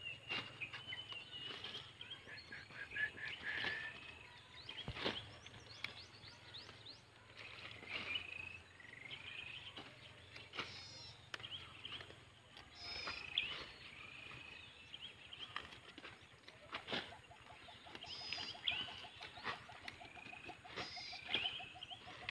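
Birds calling in short, repeated upward-curving chirps every second or two, over scattered soft snaps and rustles of bok choy being pulled up and trimmed by hand.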